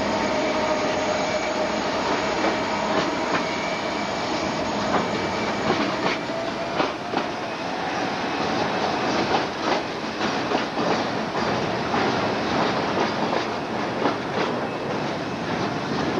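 Freight train with diesel locomotives passing close by. A steady whine runs over the rumble for the first several seconds, then the wheels clatter over the rail joints in a run of quick clicks and knocks.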